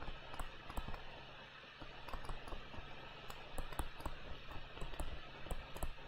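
Stylus tapping and scratching on a tablet or pen screen while words are handwritten: faint, irregular clicks, several a second.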